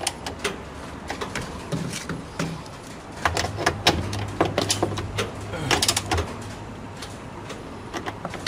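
Socket wrench clicking and metal knocking as the bolts of a washing machine's motor bracket are tightened. The clicks come in two bursts: one about three seconds in and another around six seconds.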